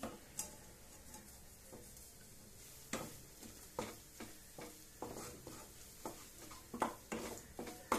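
Wooden spatula stirring and scraping scrambled egg and grated paneer around a non-stick kadai, in irregular strokes from about three seconds in, over a faint sizzle of frying.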